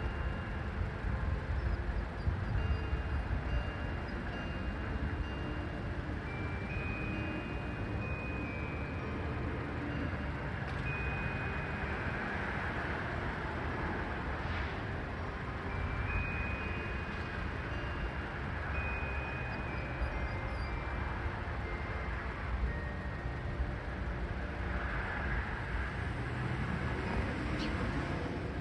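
Church chimes playing a tune, heard faintly as short high notes stepping from pitch to pitch through most of the stretch, over a steady low rumble.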